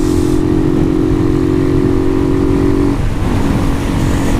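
Single-cylinder 150 cc motorcycle engine running at a steady pitch while riding, with wind rumble on the microphone. About three seconds in, the engine note dips and settles lower, as with a gear change or the throttle eased. The owner says this engine makes an ugly knocking noise and suspects a worn top end.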